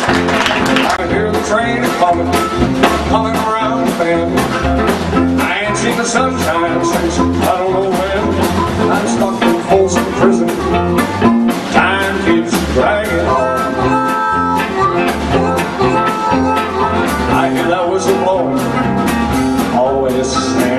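Live band playing an instrumental passage with a steady beat: electric guitar over upright bass and drums.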